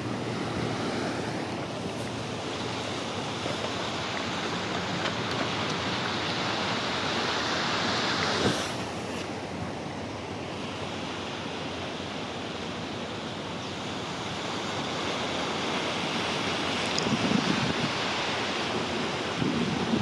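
Steady rushing noise of wind and sea water. Rough low gusts of wind buffet the microphone near the end.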